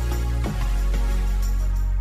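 Background music with a deep steady bass and a regular beat.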